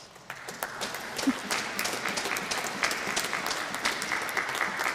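Congregation applauding in response to the preacher's question, the clapping building over the first second and a half and then holding steady.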